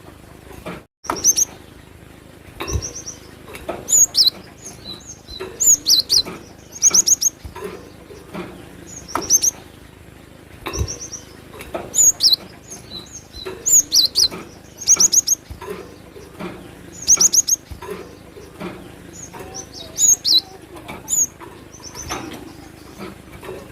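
Cinereous tit (gelatik batu) singing: repeated phrases of short, high chirps in quick groups of three or four notes, a phrase every second or two.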